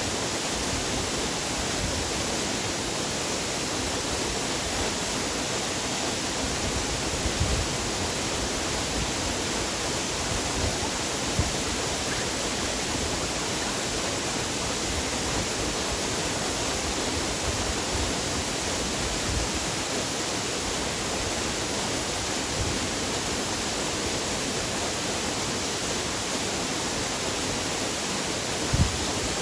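Waterfall: a steady rush of falling water, with a few brief low bumps.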